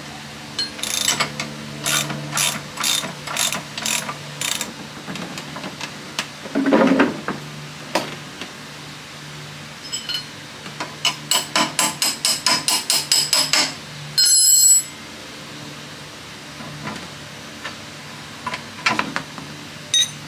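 Ratchet wrench clicking in runs as the front brake caliper bolts of a scooter are worked loose, slower at first and faster near the middle. A short, louder burst of noise comes a little past the middle.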